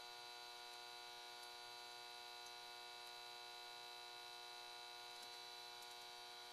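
Near silence with a faint, steady electrical hum made of several held tones, topped by a thin high whine.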